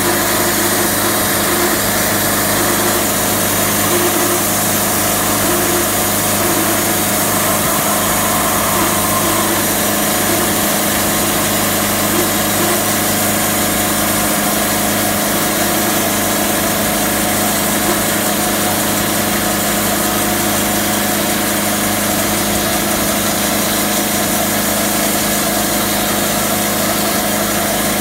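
Engine-driven portable band sawmill running steadily, sawing a black acacia log into live-edge slabs.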